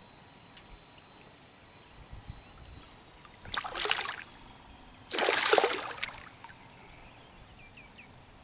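A hooked jungle barb thrashing at the water's surface: two splashes, about three and a half seconds in and again at about five seconds, the second longer and louder.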